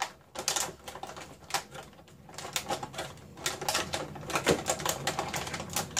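Clear plastic toy packaging crinkling and crackling with irregular clicks as hands work a robot toy free of it; quieter about two seconds in, then busier.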